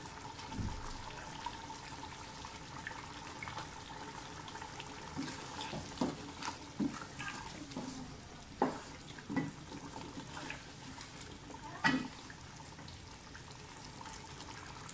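Wooden spoon stirring mutton and potatoes in thick masala in an aluminium pressure-cooker pan during the bhuna (frying) stage, over a low, steady sizzle of the cooking gravy. Scattered scrapes and knocks of the spoon against the metal pan come through the middle, with the sharpest ones about two-thirds of the way in and near the end.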